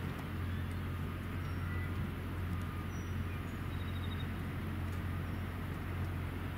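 Steady outdoor background hum, low and even, with a few faint bird chirps now and then.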